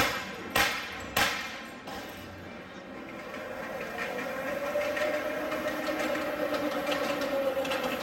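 Three sharp knocks in quick succession, then a miniature ride-on railway train running on its track: a faint whine that rises and then eases, with light clicking from the wheels on the rails.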